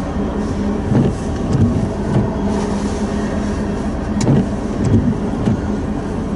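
Freight train of tank cars rolling past, its wheels clacking over rail joints in repeated groups of knocks over a steady rumble.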